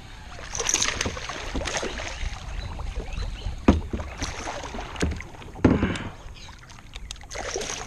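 Hooked largemouth bass splashing and thrashing at the surface beside a kayak, with water sloshing and three sharp knocks in the second half.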